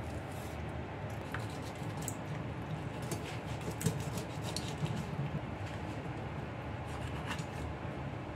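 A knife cutting and scraping through a whole fish on a wooden cutting board, with scattered small clicks and scrapes over a steady background hiss.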